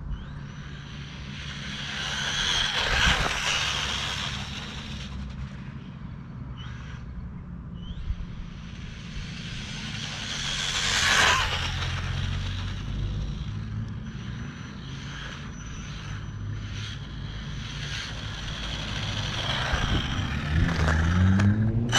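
Losi Mini-T 2.0 brushless RC stadium truck on a 3S LiPo: high-pitched motor whine with tyre noise on asphalt, swelling loudly about three seconds in and again about eleven seconds in as the truck speeds up, and rising again near the end.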